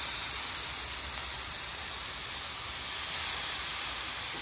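Denver steaks sizzling steadily as they sear in hot oil on a flat-top griddle at about 430°F.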